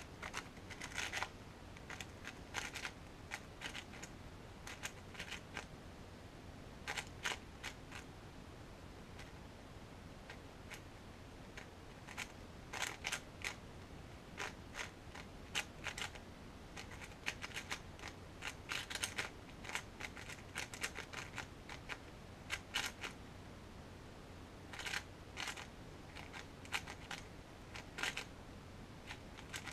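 Qiyi MS 4x4 speedcube being turned fast during a timed solve: its plastic layers click and clack in quick flurries, with short pauses between them.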